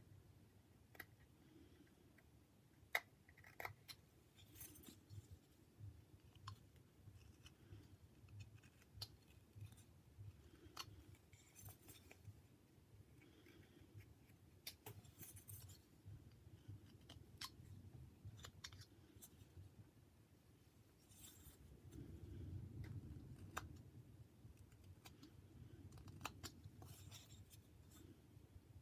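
Small carving knife whittling a wooden figure: faint, irregular slicing clicks and scrapes as thin shavings come off, with low rubbing from the hands on the wood, a little louder about two-thirds of the way through.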